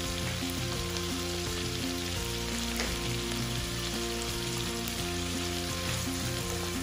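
Shrimp and chicken pieces sizzling steadily as they fry in oil in a nonstick pot, with a wooden spoon starting to stir them near the end. Light background music plays underneath.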